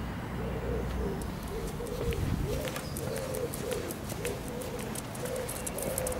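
Border Terrier whining: a steady string of short, high whines, one or two a second.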